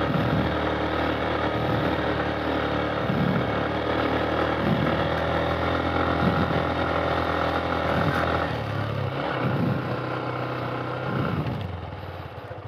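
Motorcycle engine running under load, its pitch rising and falling. About eight and a half seconds in it drops to a lower pitch, and it gets quieter near the end.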